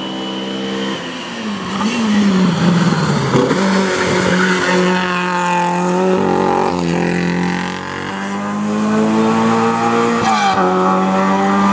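Touring race car engine under hard acceleration, revving high and dropping in pitch at several quick gear changes.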